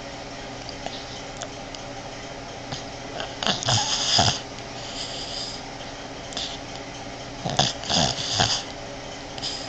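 Boston terrier snoring in her sleep, a heavy, man-like snore of the kind the breed is prone to. Two loud bouts of rough snores, a third of the way in and again near the end, with a fainter breath between, over a steady low hum.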